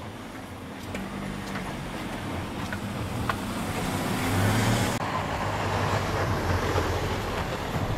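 An engine running and growing louder over several seconds, with a low hum under a noisy rush, and a few faint clicks.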